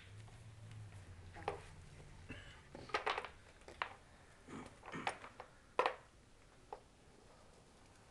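Things being handled in a wicker Easter basket: scattered rustles and light clicks, several coming close together around the middle.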